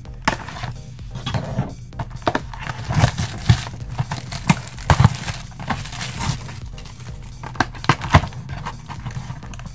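Clear plastic shrink-wrap being peeled and torn off a cardboard trading-card box, crinkling and crackling in irregular bursts as the box is turned in the hands.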